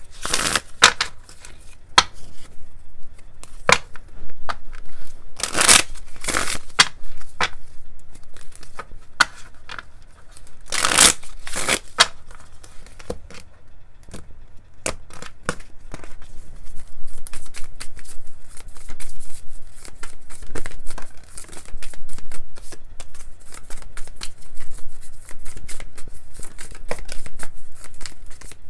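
A deck of oracle cards being shuffled by hand over a table, overhand: cards flicking and slapping against one another. Several louder riffles come in the first half, and a faster, denser run of card clicks fills the last ten seconds.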